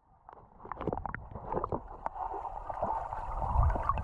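Underwater sound picked up by a submerged GoPro: scattered clicks and bubbling, with a muffled rush of water growing louder toward the end.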